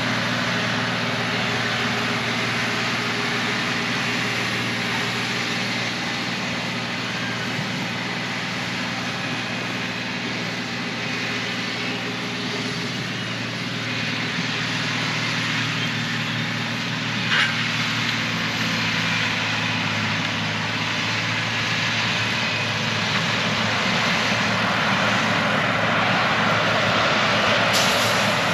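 A heavy vehicle engine running steadily at an even pitch, with one sharp click about seventeen seconds in.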